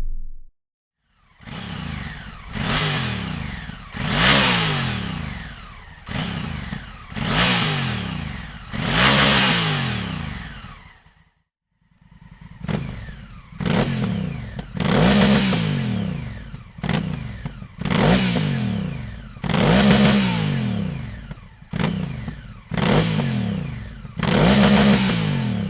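Honda CRF1000L Africa Twin's parallel-twin engine revved in repeated throttle blips, each rev rising quickly and then dying away, in two runs with a short break about 11 seconds in.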